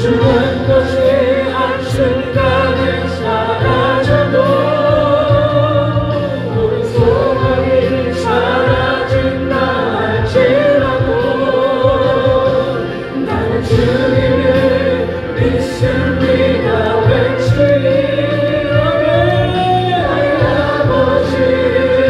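Background music: a choir singing a Christian gospel song over steady sustained accompaniment.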